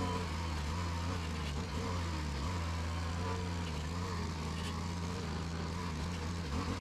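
Petrol brush cutter engine running steadily at a near-constant speed while its head cuts through overgrown weeds.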